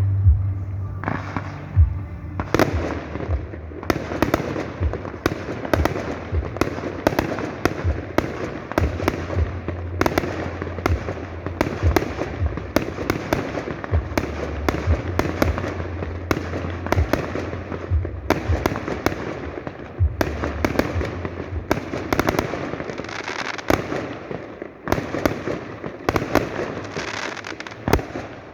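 Fireworks display: a dense, continuous run of sharp shell bursts and crackling, with many bangs a second and brief lulls near the middle and end.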